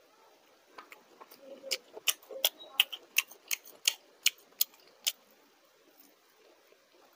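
Crisp fried fish roe pakora being crunched between the teeth, about three sharp crunches a second, stopping about five seconds in.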